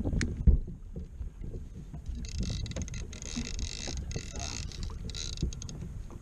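Spinning fishing reel whirring in several broken stretches in the middle, under the load of a hooked fish, over wind and water noise. A sharp knock comes about half a second in.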